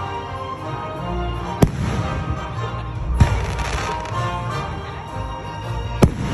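Aerial firework shells bursting with three sharp bangs a second or two apart, the last near the end, over music playing.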